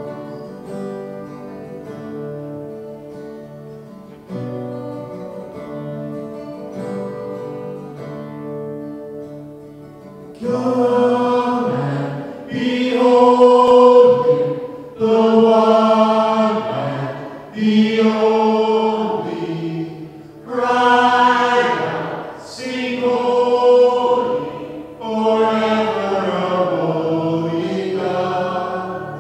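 Live worship song: two acoustic guitars play chords alone at first. About ten seconds in, men's voices come in louder over them, singing in phrases of a second or two with short breaths between.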